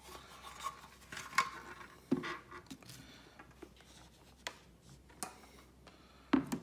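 Scattered light clicks, taps and rustles of hands handling a plastic humidifier and its packaging.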